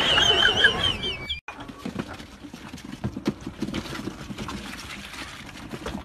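A brief high, wavering squeal that cuts off about a second and a half in. Then quieter scattered clicks and scuffling as a litter of puppies crowds round a bowl of milk and starts to feed.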